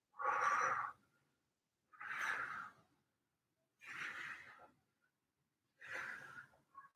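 A man breathing out hard with each crunch of an abdominal exercise: four breaths about two seconds apart, the first the loudest.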